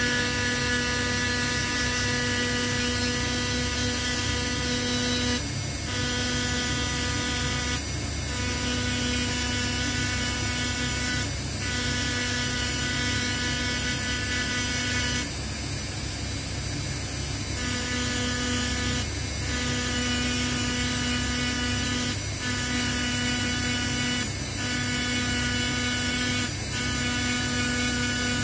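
Small high-speed electric rotary tool running with a steady whine, grinding away metal on a knife-handle band. Every few seconds, when the bit is pressed into the metal, the whine breaks into a rougher grinding noise; the longest of these comes about halfway and lasts about two seconds.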